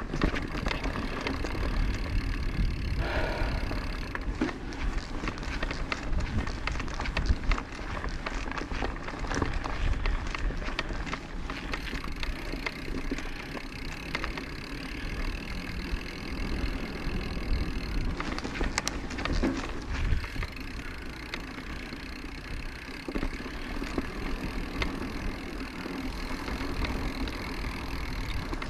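Orbea Occam mountain bike being ridden over a trail: tyres rolling and the bike rattling and clicking, over a steady low rumble.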